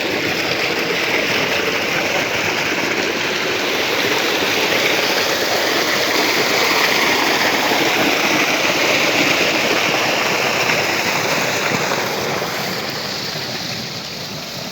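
Water rushing in a steady, loud flow, easing off near the end.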